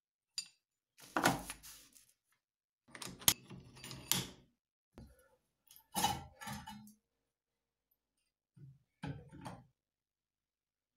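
Steel workpieces being handled and worked at a bench vise: four short bursts of metal clunks and scraping, with dead silence between them.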